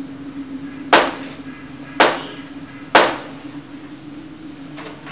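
Three slow, heavy knocks on a wooden door, about a second apart, with a fourth knock near the end, over a steady low hum.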